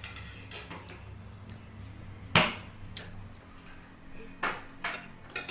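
Cutlery clinking against dishware during a meal: one sharp clink a little over two seconds in, then a few softer clicks and taps near the end, over a low steady hum.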